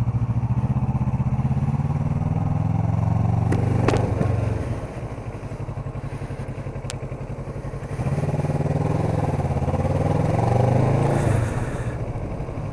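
Kawasaki Ninja 650R's parallel-twin engine running under way, dropping to a quieter, lower note about four and a half seconds in, then picking up again with a rising pitch about eight seconds in before easing off near the end. A sharp click about four seconds in.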